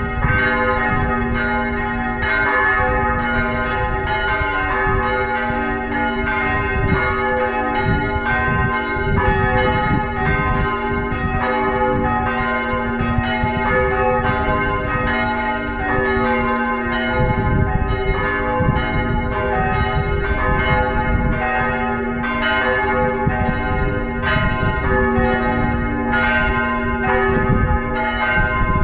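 Full peal of four swinging church bells ringing together, their strikes overlapping in a continuous, unbroken clangour.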